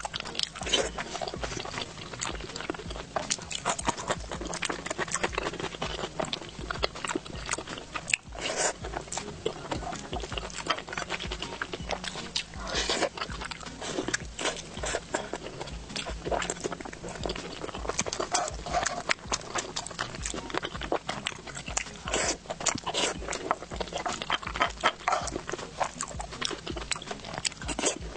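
Close-miked wet chewing and lip-smacking of a person eating oily meat in big mouthfuls, a steady stream of short mouth clicks and smacks.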